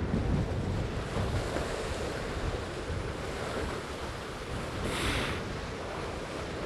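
Wind buffeting the microphone over water rushing past the hulls of a Tornado catamaran sailing fast in strong wind, with a brief louder hiss about five seconds in.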